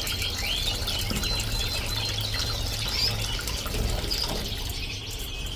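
Small bird-bath fountain splashing and trickling steadily, with canaries and finches chirping over it in short calls.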